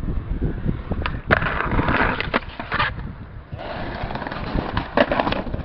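Skateboard wheels rolling on concrete, with several sharp clacks of the board striking the ground as the skater pops and lands it.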